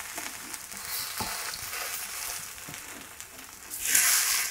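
Buttered pav buns sizzling on a hot tawa, with a few light knocks of a wooden spatula. About four seconds in the sizzling surges loudly as the spatula presses down on a bun.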